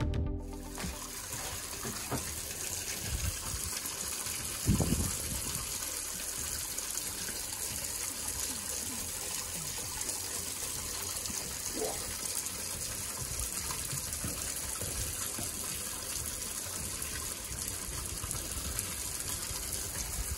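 Steady rush of water pouring from an inlet pipe and splashing into a pond, with a single knock about five seconds in.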